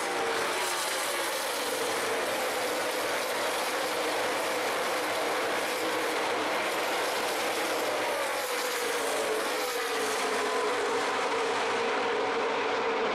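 A pack of NASCAR Nationwide stock cars racing past at speed, their V8 engines making a dense, steady drone, with pitch sliding down as cars go by.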